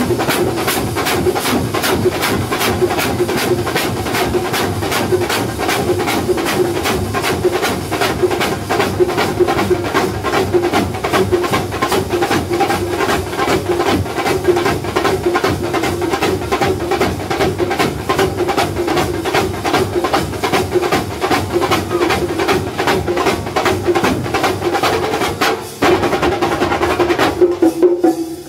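Kerala thambolam percussion band playing: rows of large stick-struck bass drums and small snare drums beating a fast, dense, driving rhythm. The level drops briefly near the end, then resumes.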